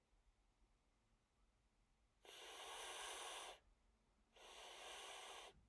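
Two breaths heard close to the microphone, each about a second long, with near silence around them.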